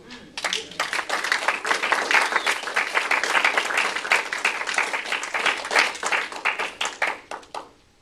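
A small audience applauding: many hands clapping together, starting about half a second in and stopping quite suddenly just before the end.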